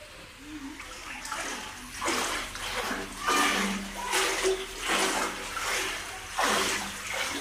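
Footsteps wading through shallow floodwater, splashing and sloshing in about five surges starting a second or so in.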